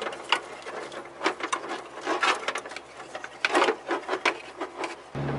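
A speedometer cable being fed up behind a Suzuki Samurai's dash: irregular scraping, rubbing and light clicks of the cable and its housing against the panels and wiring. A steady hum cuts in abruptly near the end.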